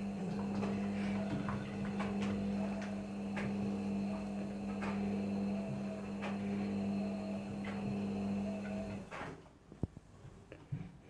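Washing machine running, a steady motor hum with a light knock about every second and a half, which stops abruptly about nine seconds in; a few faint clicks follow.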